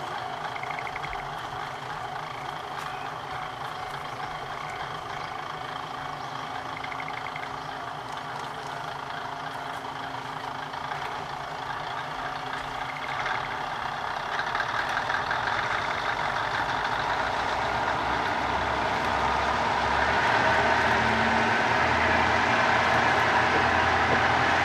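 Kominato Railway KiHa 200 diesel railcar engine idling at the station, then running up as the train pulls away, growing louder from about halfway through and again near the end.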